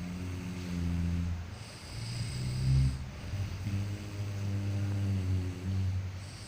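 A sleeping person snoring: three low snores, the last one the longest, with a breathy hiss between them.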